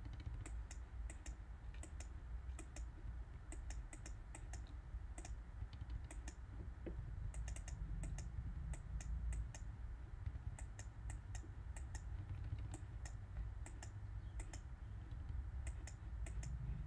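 Scattered light clicks of a computer keyboard and clicking input, some in quick runs of several, over a low steady hum.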